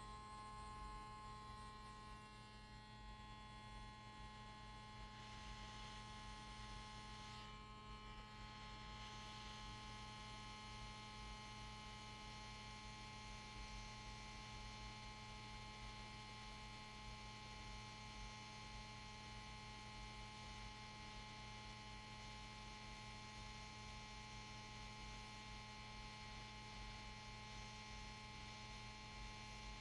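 Near silence with a faint, steady electrical hum made of several constant tones.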